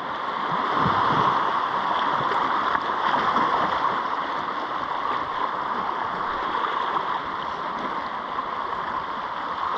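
Seawater washing and gurgling among shoreline rocks: a steady rushing wash that swells a little now and then.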